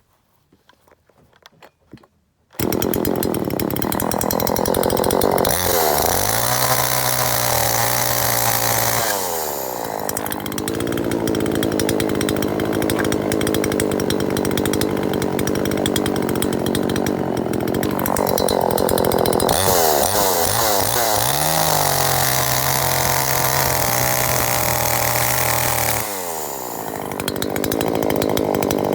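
39.6 cc two-stroke petrol chainsaw (TCS42X-16SN) bursting into loud running about two and a half seconds in, at high revs. Twice it drops to a lower, steadier idle for a few seconds and then revs back up.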